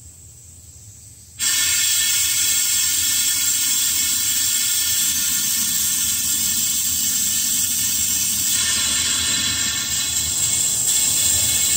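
Compressed-air venturi vacuum tool on a coolant-refill kit hissing steadily as it pulls a vacuum on the car's cooling system. It starts suddenly about a second and a half in and runs at an even level, a loud rushing hiss with a whistle of several steady tones in it.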